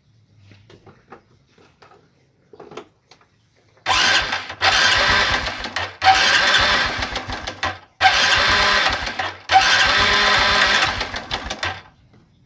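Honda Revo Absolute's single-cylinder four-stroke engine being cranked to start in four bursts of about two seconds each, with short pauses between them, not staying running. This is the first start after a new cam chain tensioner was fitted, before oil has reached it.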